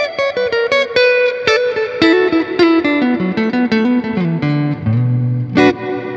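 Electric guitar played through a Strymon Cloudburst ambient reverb pedal: a quick run of single picked notes stepping down to a low held note, then one sharp picked note near the end left to ring out and fade. The pedal's modulation knob is turned fully up, giving the reverb tail a slight swirling wobble.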